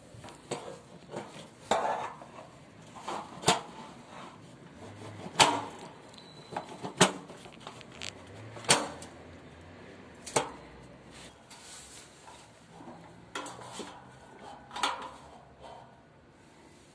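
Steel satellite-dish mounting bracket, bolts and dish parts clinking and knocking as they are handled and fitted together: a dozen or so sharp, irregular metal knocks, loudest in the middle.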